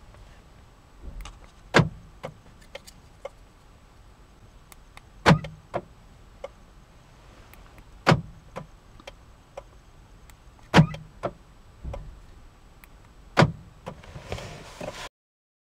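Kia Soul's central door locks clunking five times, about every three seconds, with a few lighter ticks after each clunk, as a newly programmed remote key board is pressed to lock and unlock the car: the remote has been registered and works the locks.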